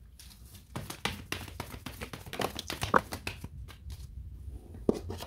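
Tarot cards being handled and shuffled: a quick run of soft clicks and flicks of card against card, starting about a second in.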